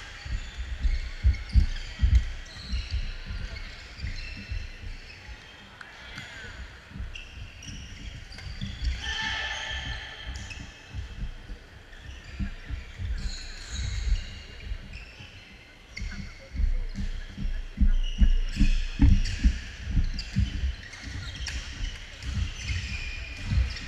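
Badminton hall sound: irregular thuds of players' feet on the wooden court floor and sharp racket strikes on shuttlecocks from the courts in play, with voices in the large gym.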